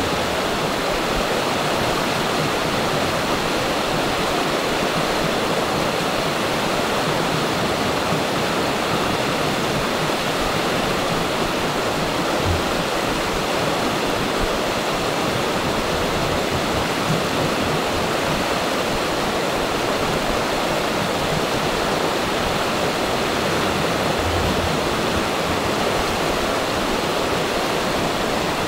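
Steady, even rushing of running water, with no distinct splashes or changes.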